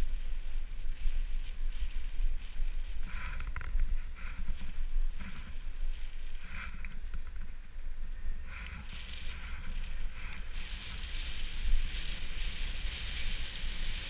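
Mountain bike rolling fast down an asphalt road, heard from a bike-mounted camera: wind buffets the microphone with a constant rumble, and the tyre hiss comes and goes at first, then holds steady from about ten seconds in.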